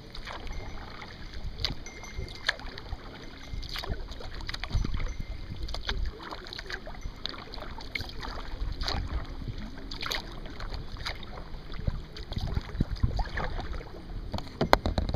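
Kayak paddling: the paddle blades dip and splash in the water at irregular intervals, with water dripping, over a low rumble of wind on the microphone.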